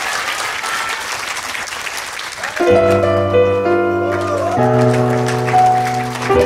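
Audience applauding, then about two and a half seconds in a piano starts playing slow, held chords that change every second or so, opening the next song.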